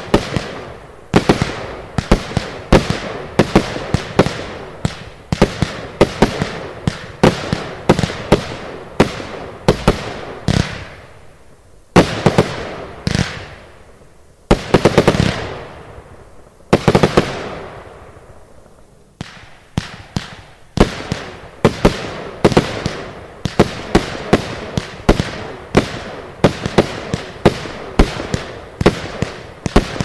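Zena Golden Box firework battery firing: a fast run of sharp bangs, several a second. About halfway through it thins to a few longer rushing bursts before the rapid bangs resume.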